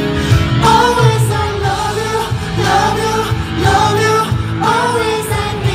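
K-pop boy group singing live into microphones over a loud pop backing track with a heavy bass line.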